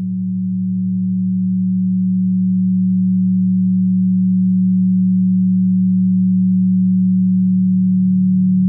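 Synthesized drone of steady low pure tones, a few held pitches together, triggered from brainwave frequencies. It swells slightly at the start, then holds level.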